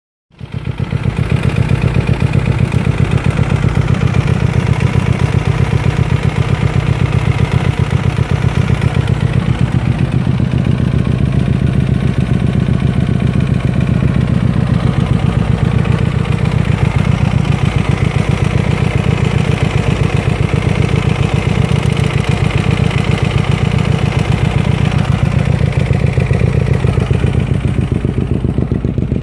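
Hyosung GT250R's 250 cc V-twin engine running steadily with a knocking clatter, which the owner attributes to the bike having been ridden with no engine oil.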